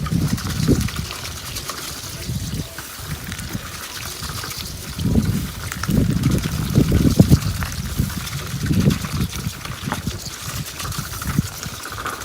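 Water trickling and splashing, with a run of irregular louder splashes a few seconds past the middle.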